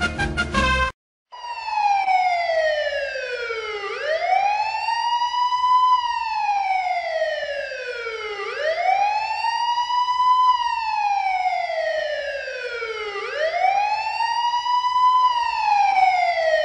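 Wailing siren, its pitch rising quickly and falling more slowly in long cycles of about four and a half seconds. It starts after music cuts off about a second in.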